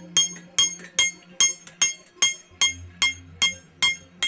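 Hand hammer striking a hot 1084 carbon-steel knife blade on an anvil in a steady rhythm of about two and a half blows a second, each blow leaving a bright metallic ring.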